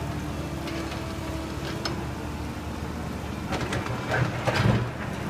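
Steady low engine hum of machinery running on the site, with a few light clicks and a louder scuffing, rustling stretch about four seconds in.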